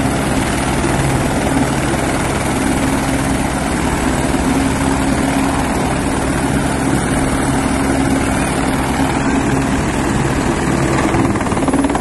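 Light police helicopter running on the ground at close range: a steady, loud rotor beat with the high whine of its turbine over it. Near the end the whine rises slightly as it lifts off.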